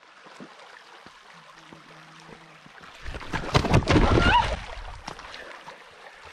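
Small river running steadily. A loud rushing burst of noise with a deep rumble comes about three seconds in and lasts under two seconds.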